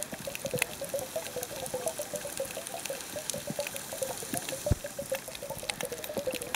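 Underwater sound picked up by a camera in the sea over a coral reef: a steady bubbling, gurgling water noise with many scattered sharp clicks, and one louder low knock about two-thirds of the way through.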